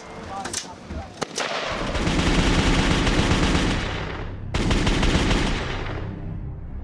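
A few separate gunshots, then a dense stream of rapid automatic-style gunfire from about two seconds in. It cuts off for a moment past the middle, resumes, and fades out near the end.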